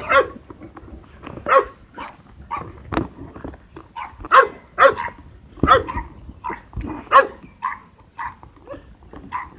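Golden retrievers barking repeatedly at play, short barks coming about once or twice a second, loudest around the middle.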